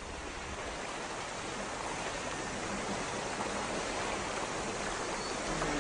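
Steady rushing of flowing river water, an even noise that grows a little louder.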